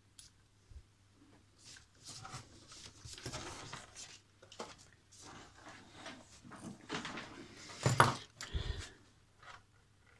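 Handling noise as a Kenwood TS-480 transceiver and its coax leads are moved about on a workbench: rustling, scraping and light knocks, with a sharp knock about eight seconds in and a dull thump just after.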